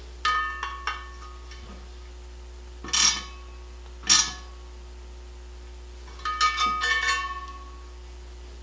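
Metal hand tools clinking against the aluminium rim of a Yamaha XJ650 Maxim motorcycle wheel while a valve stem is fitted. A few ringing clinks come near the start, then two short scrapes about three and four seconds in, then a cluster of ringing clinks about six to seven seconds in.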